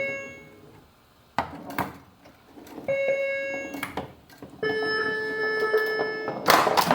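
Bally Paragon pinball machine being played: electronic tones from its AS-2518-50 sound board, short notes that fade out and one longer held tone from about four and a half seconds in, with sharp clacks of the ball and playfield mechanisms in between.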